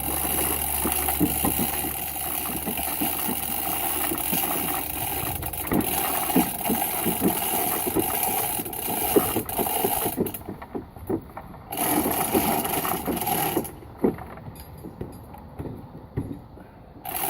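A machine running with a steady hum and hiss, under frequent short knocks and clanks. The hum cuts out about ten seconds in, runs again for a couple of seconds, then stops near the end while the knocking goes on.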